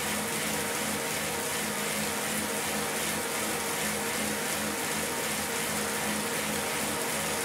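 Wheel-on turbo trainer whirring steadily under the rear tyre of a pedalled time-trial bike: an even rushing whir with a constant hum.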